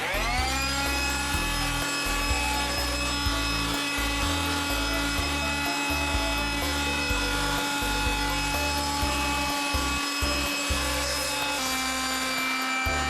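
Corded electric power tool, fed from a portable power station, spinning up at the start and then running steadily at speed, with the sound of a blade working wood.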